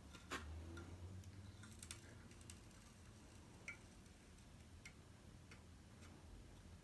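Near silence with faint, irregular small clicks and taps, about one a second.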